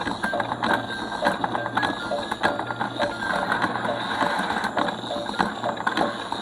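Battery-powered toy duck ferris wheel track running: a steady motor hum under rapid, irregular plastic clicking and clattering as its gears and ducks move. Short high tones sound on and off over it.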